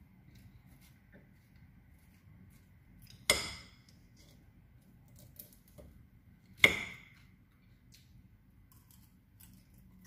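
Metal fork clinking against the dishes twice, a sharp ringing clink about three seconds in and another about three seconds later, with a few faint small taps in between.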